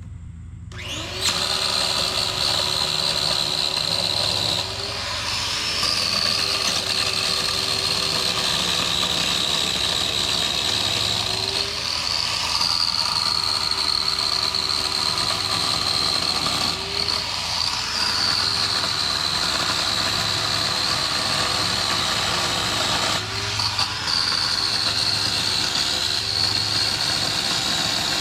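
Small Works chainsaw starting up about a second in and running steadily through branch cutting, with a whining tone that briefly shifts in pitch every five or six seconds.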